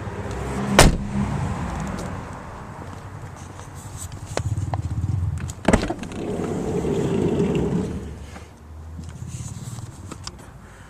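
Doors of a VW T5 van being worked: one loud thump about a second in and another just before six seconds, with rattling and handling noise between.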